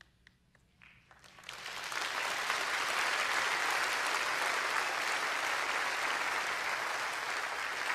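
A large audience applauding: the clapping starts about a second in, swells quickly and then holds steady.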